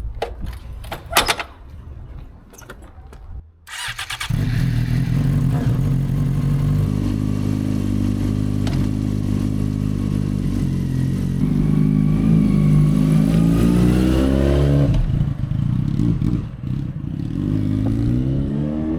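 2008 Yamaha FZ6 Fazer's inline-four engine starts about four seconds in, after a few clicks, and runs steadily. Its pitch climbs as it revs, then it drops off and rises again more faintly as the bike rides away.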